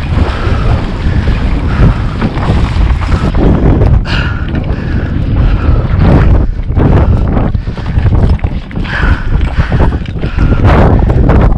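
Strong wind buffeting the microphone with a loud, gusting rumble, and footsteps crunching across dry, cracked mudflat.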